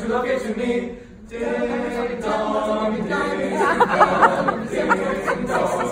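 Teenage boys' a cappella group singing a Christmas carol medley in close harmony, with a short break about a second in before the voices come back in.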